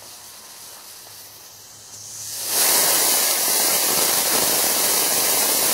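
Homemade potassium-nitrate solid-fuel rocket motor on a static test, catching about two seconds in and building within half a second to a loud, steady hiss of exhaust as it burns.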